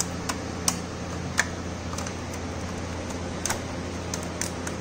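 Scattered light metallic clicks and taps at irregular intervals, from engine parts and tools being handled, over a steady low hum.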